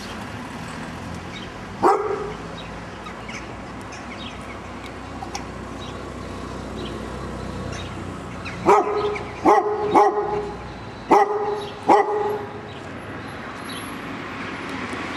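A dog barking: a single bark about two seconds in, then a run of five barks a little past the middle.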